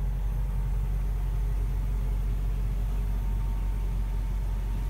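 Truck engine idling, a steady low drone.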